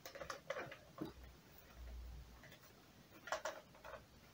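Soft plastic clicks and knocks of a helmet with an earmuff headset being handled and pulled onto the head, in two short clusters, with a dull low rumble around the middle.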